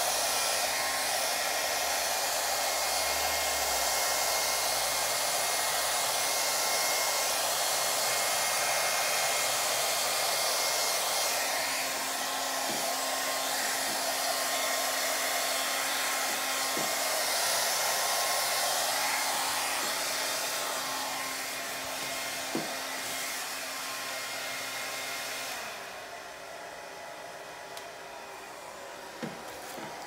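Handheld hair dryer running steadily on its cool setting, blowing air over wet acrylic paint on a canvas. Near the end its sound drops off sharply and goes much quieter.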